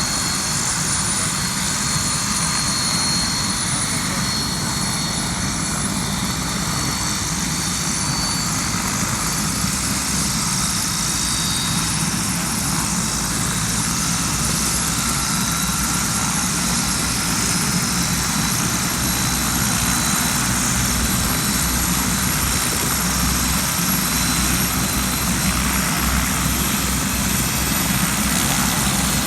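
Helicopter running steadily: rotor chop with a high turbine whine, slowly growing louder toward the end.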